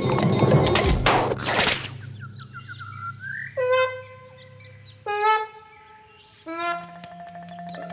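Cartoon sound effects: two quick whooshes over music, then a short rising squeaky chirp and three separate horn-like honks, each lower in pitch than the last.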